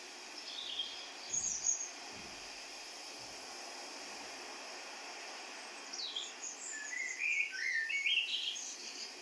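Small songbirds chirping over a steady hiss: a few quick chirps about a second in, then a longer run of rapid chirps jumping up and down in pitch from about six seconds in. A few faint low thumps sound in the first few seconds.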